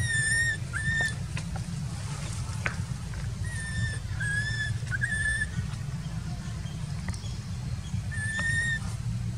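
Baby macaque giving short, high, whistle-like coo calls: two at the start, three close together in the middle and one near the end. These are the cries of a hungry infant. A steady low rumble runs underneath.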